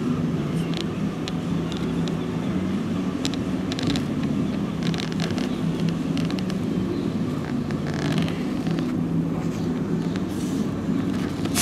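City street ambience: steady traffic noise under a low, constant hum, with a few faint clicks and knocks.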